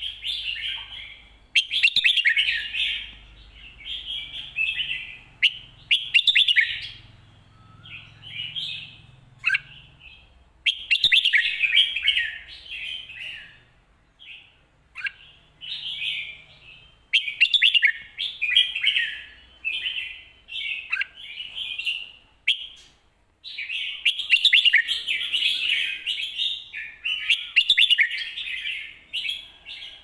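A caged red-whiskered bulbul singing: bright, warbling phrases one after another with short pauses between them. It is the full competition-style song that bulbul keepers call lak wai and mae bot.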